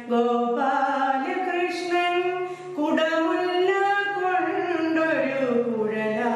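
A woman singing a slow devotional song in a solo voice, holding long notes that step up and down in pitch.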